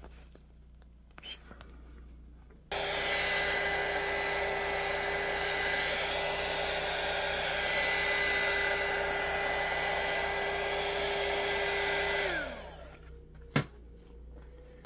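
Handheld electric heat gun switched on about three seconds in, blowing steadily with a whine from its fan motor as it heats an RC tire to soften the glue bonding it to its plastic rim. Near the end it is switched off, and the whine falls as the fan winds down; a sharp knock follows about a second later.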